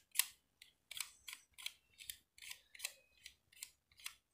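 Plastic tiles on a Rubik's Race game board being slid quickly by a finger, a rapid string of short plastic clicks at about three a second.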